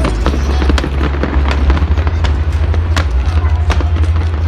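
Fireworks going off: a dense, irregular run of sharp bangs and crackles, several a second, over a continuous deep rumble of booms.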